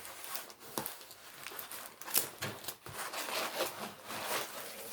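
Plastic-covered diamond painting canvas being handled, the film crinkling and rustling in irregular crackles.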